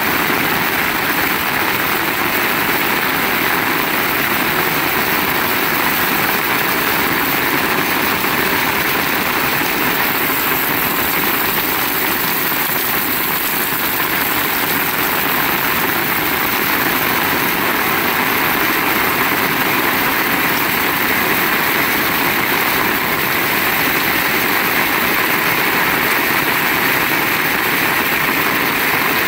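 Heavy rain pouring steadily and evenly, with no let-up.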